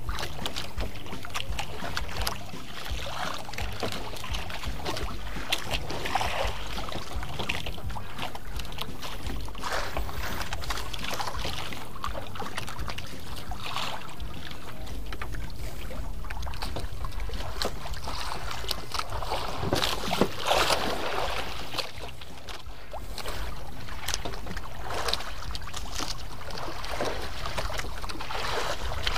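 Ambience on a small wooden outrigger boat at sea: wind buffeting the microphone and water sloshing, with scattered light knocks and clicks.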